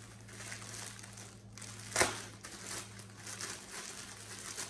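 Packaging crinkling as it is handled, with one sharp snap about two seconds in.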